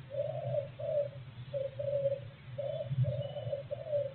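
A pigeon cooing: phrases of two or three low hooting notes repeated over and over, with a steady low hum underneath.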